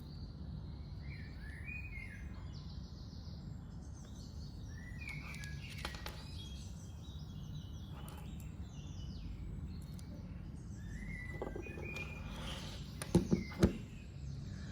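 Birds chirping in the background over a steady low rumble, with a few sharp clicks or knocks near the end.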